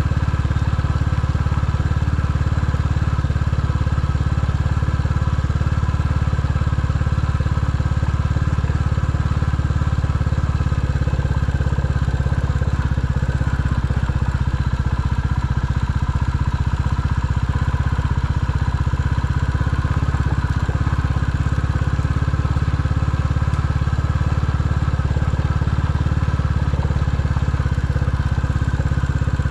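A vehicle engine running steadily, a continuous low hum with no clear revving.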